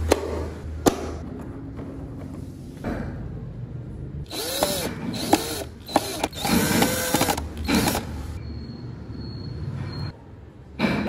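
Moving wooden parts of a hand-carved Fokienia-wood model pickup truck being worked by hand: two sharp clicks in the first second, then a few seconds of wood-on-wood rubbing, squeaking and small knocks.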